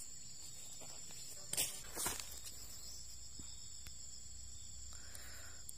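Steady high-pitched insect chorus held at a constant pitch, with two brief knocks about one and a half and two seconds in.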